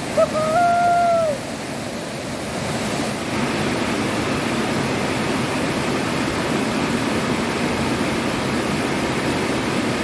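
Waterfall rushing into a rocky pool: a steady rush of water that grows louder about three seconds in and then holds. At the very start there is a single short, high hoot held at one pitch for about a second.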